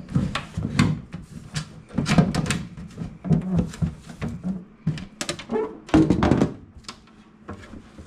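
Repeated knocks and thunks as items are handled and set down in a refrigerator during a cleanout, irregular and close together.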